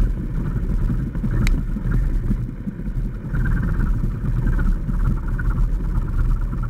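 Grumman AA-5A Cheetah's four-cylinder Lycoming engine idling during the landing rollout, with the plane rolling along the runway, heard from inside the cabin. A single sharp click comes about a second and a half in.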